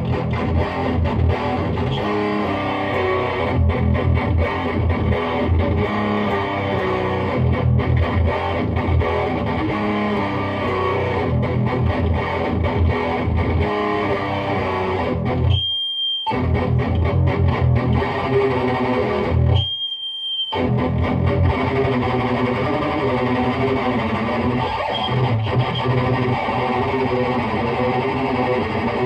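Distorted electric guitar riffing: a Gibson Les Paul through a Lone Wolf Audio Bullet Belt distortion pedal into a Peavey 6505 amp with its bright switch on, heard through a 2x12 cabinet. The playing stops briefly twice, about 16 and 20 seconds in, leaving a thin high tone in each pause.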